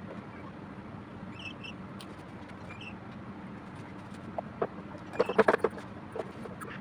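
Handling of a hand vacuum brake-bleeder pump with gauge and clear tubing at a car's brake fluid reservoir: a quick cluster of sharp clicks and knocks about four and a half to five and a half seconds in, over a steady low hum. A few short high chirps about a second and a half in.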